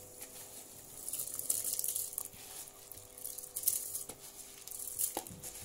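Drained, soaked rice poured from a bowl into an aluminium pot of boiling masala water: a hissing patter of grains sliding and splashing in, with a couple of light knocks near the end. A faint steady hum runs underneath.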